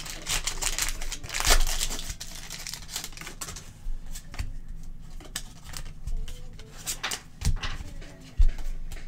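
A foil trading-card pack wrapper crinkles as the cards are pulled out of it. Then the cards are slid and flicked through one at a time, with light ticks, and two dull knocks near the end.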